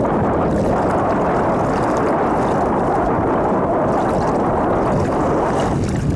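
Steady wind rushing over the microphone, with choppy lake water washing around the canoe.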